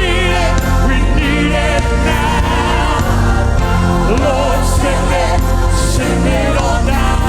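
Worship music: a band playing with singers holding wavering notes over a steady bass.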